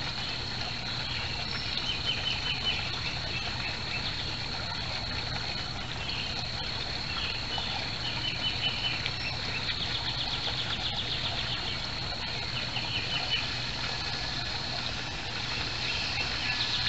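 Songbirds trilling several times, short rapid trills, over a steady hiss and a constant thin high tone.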